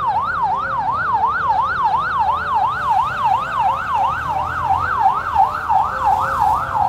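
Railway level-crossing warning alarm: an electronic tone sweeping up and down about three times a second, sounding while the barriers are down for an approaching train. A low rumble of waiting road traffic runs beneath it.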